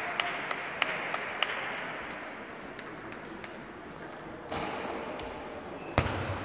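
Table tennis balls clicking off paddles and tables, irregular sharp pocks from this and neighbouring games, echoing in a large sports hall. A loud hit about six seconds in.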